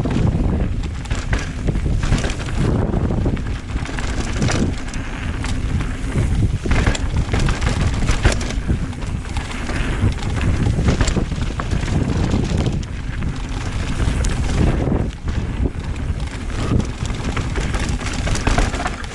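Mountain bike riding downhill on a dirt trail: wind buffeting the microphone over the tyres rolling, with frequent short rattles and knocks as the bike goes over bumps and roots.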